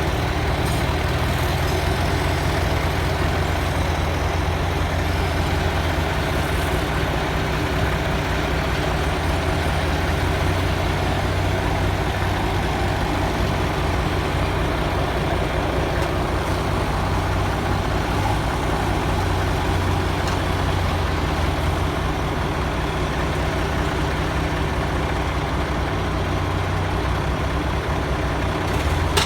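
Heavy truck's diesel engine running steadily with a continuous low hum, as the truck works under a heavy load.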